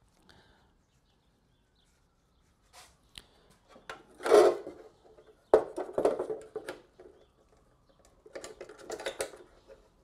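Stiff coat-hanger wire being worked into the sheet-metal license-plate birdhouse: irregular scraping and clicking of wire on metal. After a few quiet seconds comes the loudest scrape, then a sharp click about halfway and more scraping and clicks near the end.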